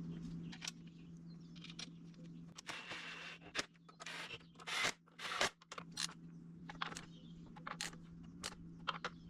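Scattered light metallic clicks and scrapes of hand tools and parts being handled while a belt pulley, its spacer and the fan are put back together, over a faint steady hum.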